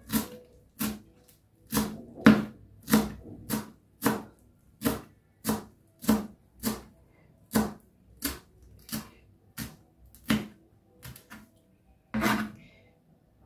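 Kitchen knife chopping fresh coriander on a plastic cutting board: a steady series of knocks as the blade hits the board, about one and a half a second, with a longer, louder stroke near the end.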